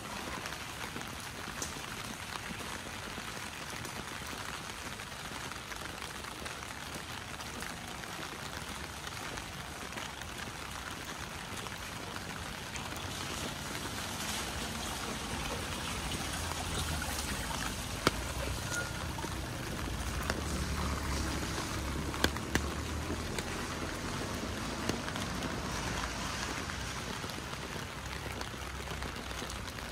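Steady rain with water running and trickling. A low rumble comes in about halfway through, and a few sharp clicks stand out.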